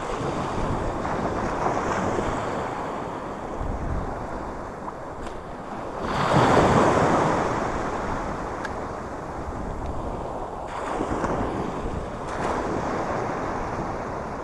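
Shallow sea water washing and small waves lapping, with wind buffeting the microphone. The water swells into a louder wash about halfway through and twice more, more softly, near the end.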